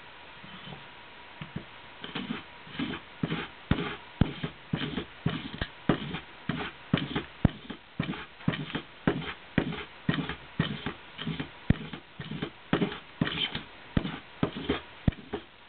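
Hand tool working a workpiece in rhythmic strokes, about two a second, each a short scrape with a sharp click, starting about two seconds in.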